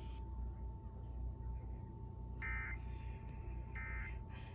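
Emergency Alert System end-of-message data bursts: two short, shrill, buzzy digital bursts a little over a second apart, starting about halfway in, over a faint steady tone and hum.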